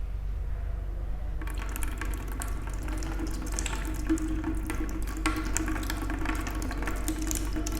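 Warm salt water from a neti pot pouring into one nostril and streaming out of the other, splashing down in a steady trickle that starts about a second and a half in.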